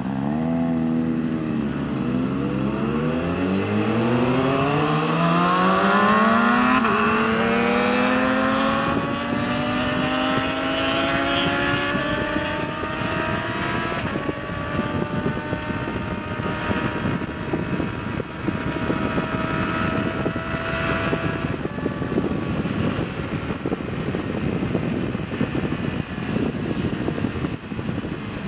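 Sport bike engine pulling away from a stop and accelerating hard, its pitch climbing steadily for about a dozen seconds, then holding at highway speed with wind rushing over the microphone.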